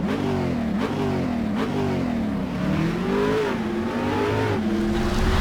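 An engine revving, its pitch climbing and dropping back several times in quick succession.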